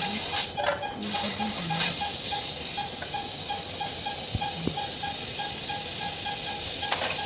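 Surgical suction hissing steadily, swelling slightly midway. Underneath is a faint, quick, regular electronic beeping of about three short beeps a second.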